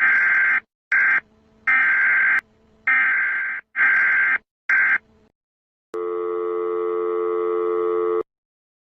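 Emergency alert broadcast tones: a run of short, harsh, screeching data bursts, about seven in five seconds, then a steady buzzing alert tone lasting about two seconds.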